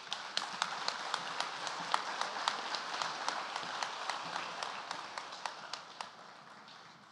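Audience applauding, a dense patter of many hands with some sharper single claps standing out, dying away gradually toward the end.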